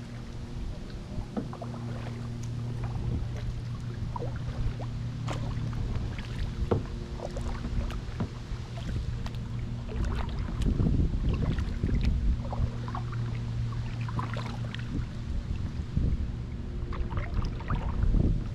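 Kayak paddle strokes dipping into lake water, with small irregular splashes and drips, over wind rumble on the microphone and a steady low hum.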